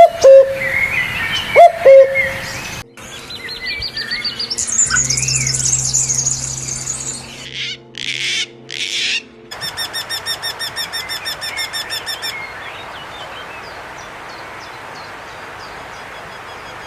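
Recordings of several different birds spliced one after another: loud low calls with swooping notes at the start, then warbling song and trills, then a fast run of short high chirps at about four a second, ending in a faint steady hiss.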